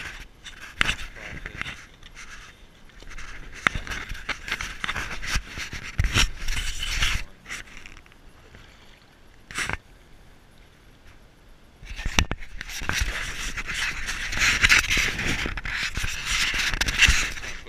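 Water splashing and sloshing against a handheld GoPro dipped in and out of a shallow creek, with knocks and scrapes from handling the camera. About twelve seconds in it turns into a louder, continuous churning of water.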